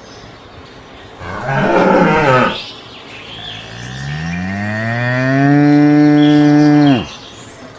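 Dairy cows mooing: a short, rough moo about a second in, then a long moo that rises in pitch, holds steady and cuts off about seven seconds in.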